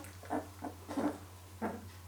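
Thirteen-day-old Labrador puppies making short, high little squeaks and whimpers, about four small calls, the last shortly after the middle.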